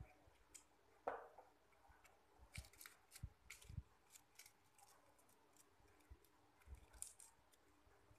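Faint, scattered rustling and crinkling of paper as the petal layers of a handmade paper flower are pressed and fluffed by hand, with a sharper crinkle about a second in.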